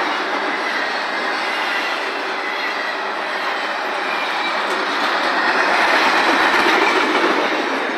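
Double-stack intermodal well cars rolling past: the steady noise of steel wheels on rail, swelling a little louder about six seconds in.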